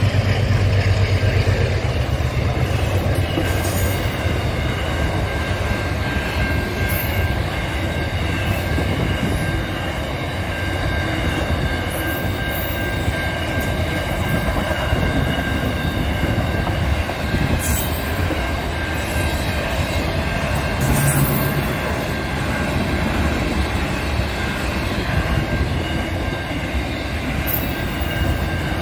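A freight train's wagons roll past at speed with a steady rumble of wheels on rail. A locomotive's low engine drone fades in the first couple of seconds. Steady high-pitched tones run over the rumble, and there are a few sharp clicks.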